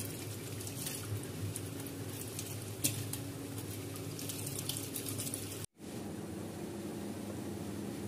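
Kitchen tap running into a stainless steel sink while a mango is washed under it by hand, water splashing over the fruit and hands with a few sharper splashes. The water stops abruptly about six seconds in.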